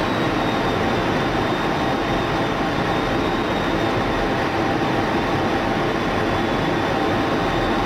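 Steady cockpit noise inside an F-16 fighter jet in flight: a constant rush of air and engine, with a faint steady high whine above it.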